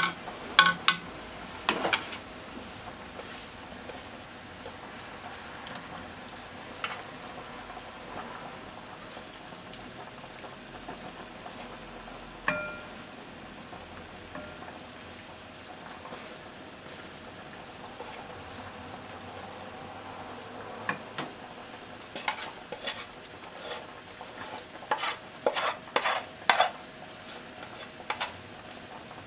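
Macaroni in ketchup sauce sizzling softly in a hot frying pan while it is scraped out onto a plate with wooden chopsticks. Sharp clicks and taps of the chopsticks against the pan and plate come in a cluster at the start and again in a run near the end, with one ringing clink about halfway.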